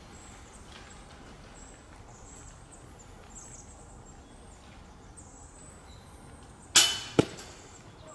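A putt hitting the chain basket of a disc golf target: a loud metallic crash with a brief jangling ring nearly seven seconds in, then a second sharp clank half a second later, over a quiet background with faint bird chirps.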